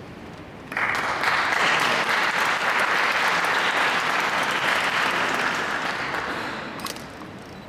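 Audience applause, breaking out suddenly about a second in and dying away near the end.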